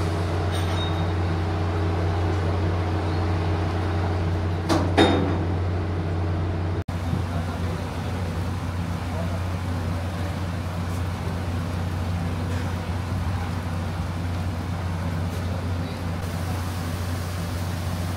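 Steady low engine hum on a ferry's vehicle deck, with one brief loud clank about five seconds in. After about seven seconds, heavy rain falls over the same hum.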